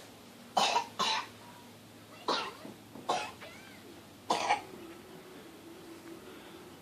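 A person coughing: five short, sharp coughs, two quick pairs and then a single one.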